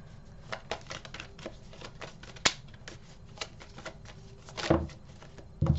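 A tarot deck being shuffled by hand: irregular quick clicks and flicks of the cards, with a sharper snap about two and a half seconds in and a louder knock near the end.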